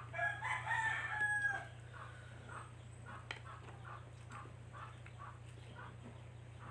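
Rooster crowing once near the start, a loud call lasting about a second and a half.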